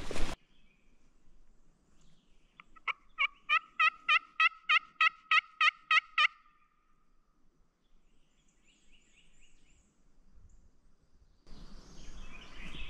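Turkey yelping: a run of about a dozen short, evenly spaced yelps, about four a second, lasting around three seconds.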